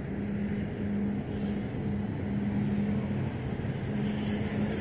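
Brushless motors and propellers of a FuriBee Q95 FPV racing quadcopter buzzing in flight, a steady hum that drops out briefly about a second in and again between three and four seconds.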